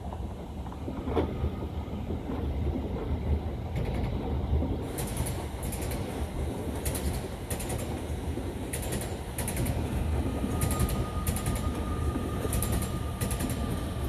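Class 37 diesel locomotive's English Electric V12 engine running with a steady low rumble. From about five seconds in, wheels click over rail joints about twice a second, and a thin steady wheel squeal joins near the end.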